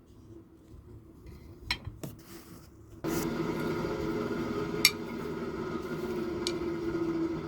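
A few light metal clinks, then about three seconds in a motor-driven machine switches on and runs with a steady hum, with a couple of sharp metal clicks over it.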